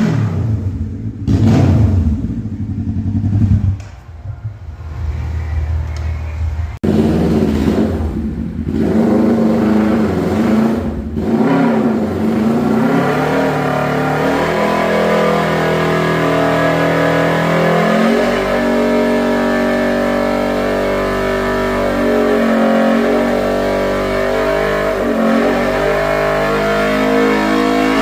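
Kawasaki Z650 parallel-twin engine revving hard in a burnout to burn off the old rear tire. It blips up and down in the first few seconds, cuts off abruptly about seven seconds in, then climbs and is held at high revs with a wavering pitch for the rest.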